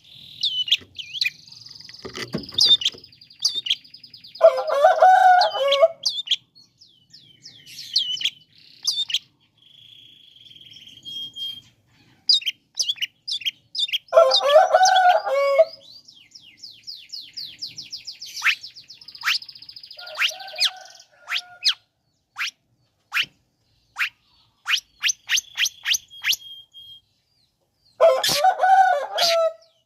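Long-tailed shrike (cendet) singing a fast, varied song of sharp chirps and trills. It is broken three times, about every ten seconds, by a harsh rasping call about a second and a half long.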